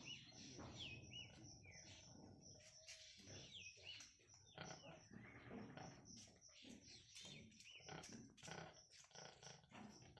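Faint animal calls, short high chirps repeating every second or so in the first half, over scattered knocks and shuffling.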